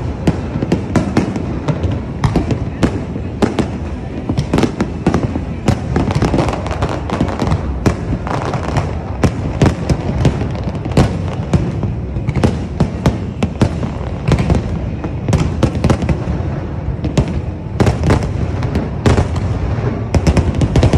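Aerial fireworks display: shells bursting overhead in quick succession, a dense run of sharp cracks and deeper bangs that hardly lets up.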